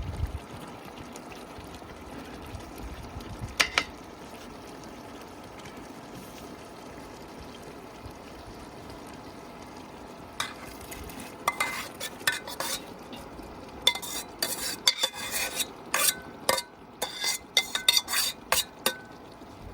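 Stirring in a cooking pot of squash stew, the utensil clinking and scraping against the pot. There is a single clink about four seconds in, then a dense run of clinks through the second half over a steady background hiss.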